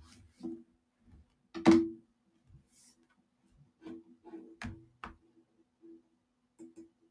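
A few scattered clicks and knocks at irregular moments, the loudest a single thump about two seconds in and a small cluster near five seconds, over a faint steady low hum.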